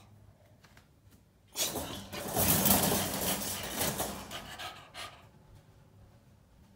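Wire exercise pen rattling and clattering for about three seconds as a Peagle puppy paws at it and drops down from its top rail.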